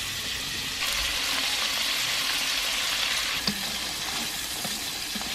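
Small stream gobies sizzling as they fry in lard in a metal wok, turned with chopsticks: a steady hiss that swells slightly about a second in, with a few light clicks.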